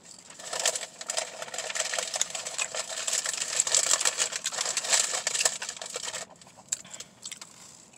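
Paper sandwich wrapper crinkling and rustling close to the microphone, a dense crackle from about half a second in until about six seconds, then only faint scattered crackles.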